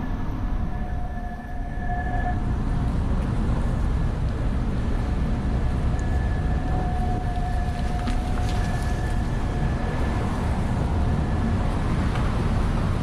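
Wind buffeting the microphone in a steady low rumble. Two thin, steady high tones sound over it for the first couple of seconds, then again from about six seconds in.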